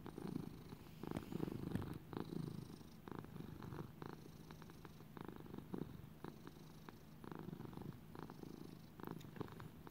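Domestic cat purring steadily, a low purr that swells and fades in regular pulses, about one to two a second.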